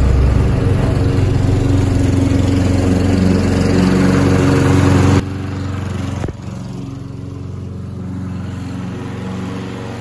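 The Honda GCVx 200 single-cylinder engine of a self-propelled mulching lawn mower runs steadily at fixed speed while cutting wet grass. About five seconds in, the sound cuts off abruptly, leaving quieter steady background music.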